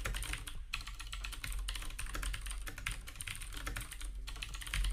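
Fast typing on a computer keyboard: a steady, irregular clatter of keystrokes.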